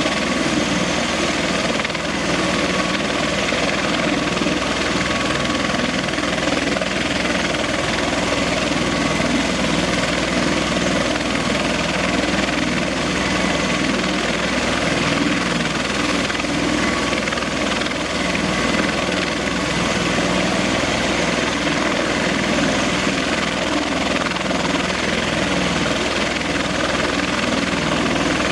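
Bell Boeing CMV-22B Osprey's twin Rolls-Royce T406 turboshaft engines and proprotors running steadily on the ground: a constant loud rotor and turbine noise with a faint high whine.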